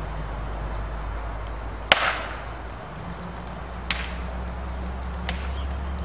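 A crane's engine running steadily, with one sharp loud crack about two seconds in and two lighter snaps after it.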